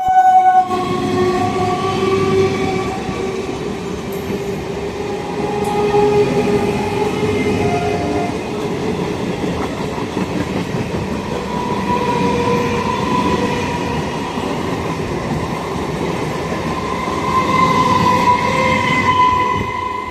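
Indian Railways train running past with its wheels rumbling and clattering on the rails, its horn sounding in long, loud blasts near the start and again near the end.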